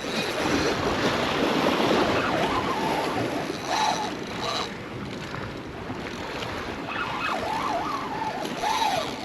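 Surf washing against a rock jetty, mixed with wind on the microphone.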